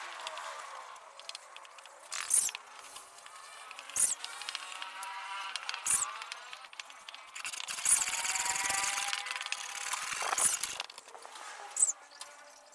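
A spreader scraping white wood glue across a wooden table top, with a longer steady scrape about two-thirds of the way through and several short, sharp clicks and taps.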